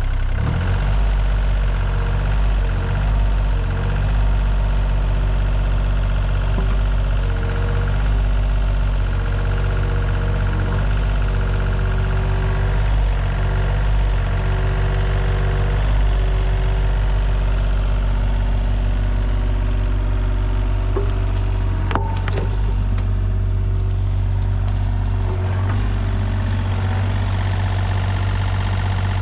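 Takeuchi TB235-2 mini excavator's diesel engine running steadily, with a hydraulic whine that comes and goes as the machine works its boom and bucket to pull itself free of mud. A sharp knock sounds about two-thirds of the way in.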